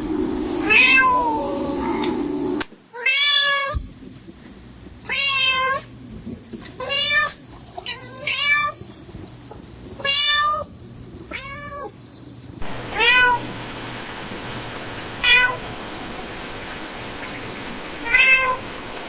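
Domestic cat meowing softly: about ten short meows, each rising and falling in pitch, one to three seconds apart.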